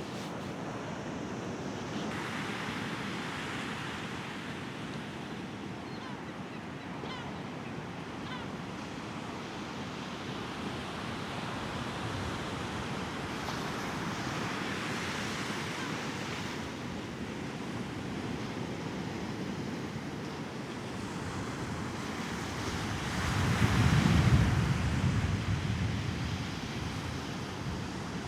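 Sea waves washing onto the shore, surging several times, with the strongest surge and a low rumble near the end. Wind buffets the microphone.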